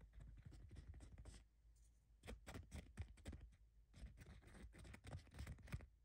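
Faint, quick scratching and tapping in three short bursts, made on purpose to catch the kittens' attention.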